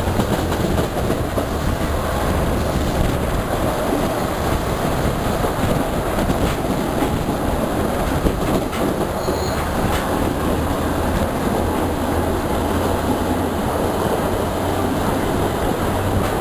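Passenger train running along the track, heard from an open window: a steady rumble of steel wheels on the rails over a low, even hum, with a couple of faint clicks from the rail joints.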